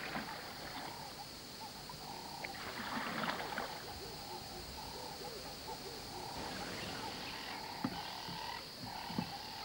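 Faint chorus of frogs calling, a steady pulsing trill that runs on in short stretches, with a brief rush of noise about three seconds in.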